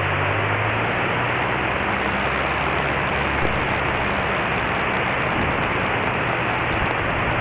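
Cessna 152's four-cylinder Lycoming engine running steadily at low power, heard inside the cabin as a constant drone with a slight shift in pitch while the plane taxis slowly onto the runway.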